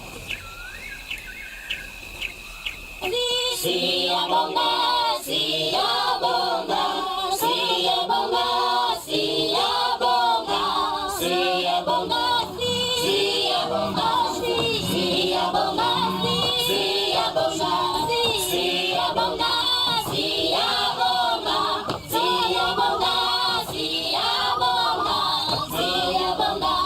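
Insects chirping faintly, then about three seconds in a choir starts singing as background music and carries on.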